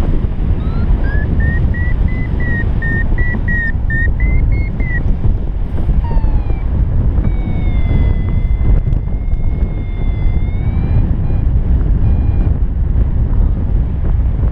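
Heavy wind buffeting the microphone in paraglider flight, with a flight variometer beeping over it: short beeps rising to a high pitch, a falling tone about six seconds in, then a steadier high tone that lifts again around eleven seconds. The rising beeps are the vario's signal of climbing in lift.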